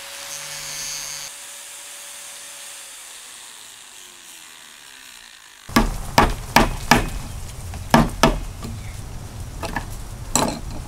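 Angle grinder disc spinning with a faint whine that slides lower as it winds down. Then, about six seconds in, a quick run of sharp metallic clicks and taps from a steel blade working at the corroded copper crimp ring on polybutylene pipe.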